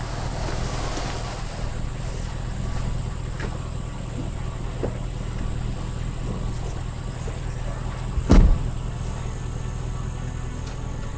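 Dodge pickup truck's engine idling steadily, with a single loud slam, the cab door shutting, a little past eight seconds in.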